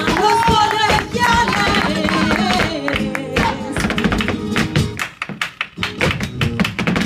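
Live flamenco alegrías: nylon-string flamenco guitar playing over rhythmic palmas hand-clapping and the dancer's heel-and-toe footwork stamping on a wooden stage. The sharp stamps and claps grow denser and take over in the second half while the guitar drops back.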